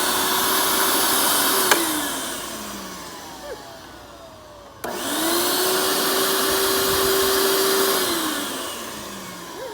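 Upright vacuum cleaner motor switched on and running with a steady whine, then switched off with a click and winding down. It is switched on again about five seconds in and winds down once more near the end.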